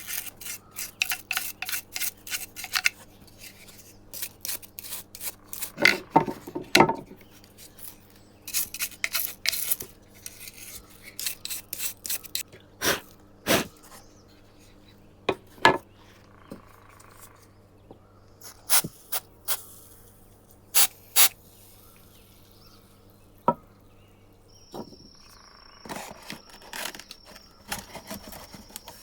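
Hand-tool scraping strokes on a workpiece: quick runs of short rasping strokes at the start and again about nine seconds in, then single strokes spaced a second or more apart. A steady high-pitched whine comes in near the end.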